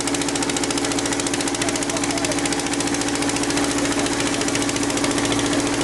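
An engine running steadily at close range, with a fast, even pulsing beat and a steady hum.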